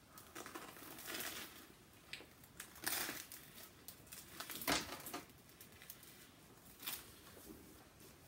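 Close-up chewing of a crunchy soft-shell crab sandwich coated in Flaming Hot Cheetos, with scattered crisp crunches. The loudest come about three seconds in and again past the middle.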